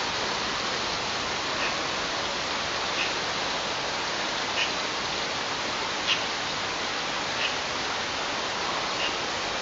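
Steady hiss with a short, high bird call repeated about every one and a half seconds.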